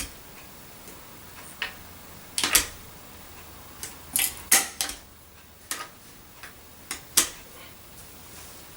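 Irregular clicks and knocks of hard parts being handled on a 1955 Hoover Junior 119 vacuum cleaner, about ten in all. The sharpest come about halfway through and about seven seconds in.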